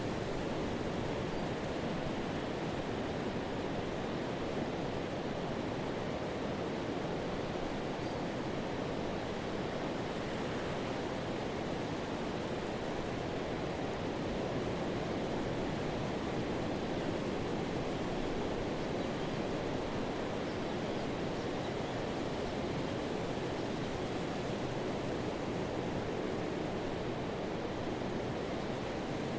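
Pacific surf on a sand beach: waves breaking and foam washing along the shoreline, heard as a steady, even rush with no single crash standing out.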